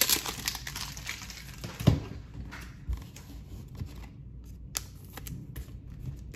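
Trading cards and foil card packs being handled on a tabletop: light rustling and crinkling with scattered small taps, and one sharper knock about two seconds in.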